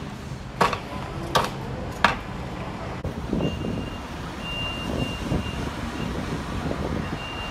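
Demolition machinery running, with three sharp bangs in the first two seconds, like debris or a steel bucket striking. From about halfway a reversing alarm beeps on and off over the engine noise.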